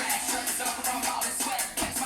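Workout music with a steady beat: upbeat hip-hop-style track.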